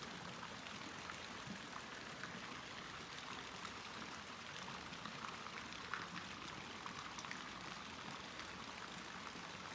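Steady faint rushing noise, like running water, with a small click about six seconds in.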